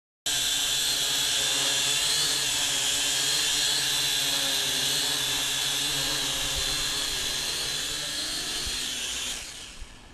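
FQ777 FQ40 brushed quadcopter's motors and propellers whining steadily at a high pitch. The whine dies away about nine seconds in as the drone settles on its pad and the motors stop.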